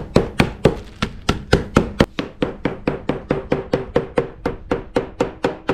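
Abalone flesh being pounded to tenderise it: a rapid, even run of blows, about four a second.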